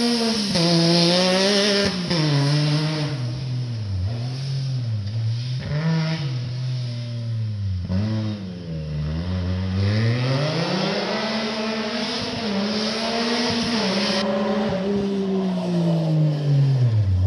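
Yamaha YXZ1000R side-by-side's three-cylinder engine through a Two Brothers aftermarket exhaust, driven hard, its pitch repeatedly climbing and dropping as it revs and lets off. It fades as the machine moves away, faintest a little past halfway, and is loud again near the end as it comes back close.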